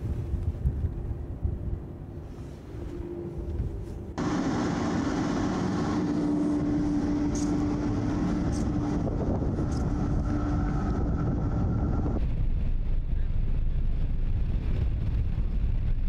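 Wind and machinery noise aboard the guided-missile cruiser Moskva at sea: a low rumble, then, abruptly about four seconds in, a louder steady hum with a clear held tone, which gives way just as suddenly to a low rumble again about twelve seconds in.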